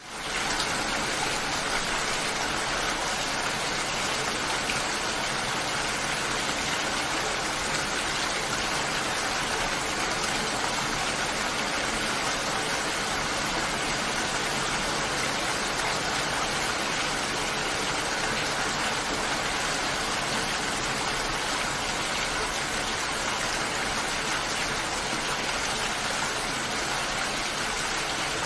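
Steady rainfall: a dense, even hiss of falling rain that fades in at the very start and then holds level.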